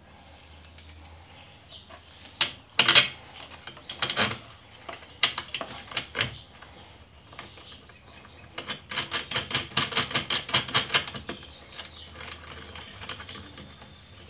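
Small metal-and-plastic clicks and taps as a nut is threaded by hand onto a motorcycle turn signal's mounting stud, scattered at first, then a fast run of clicks for about two and a half seconds past the middle.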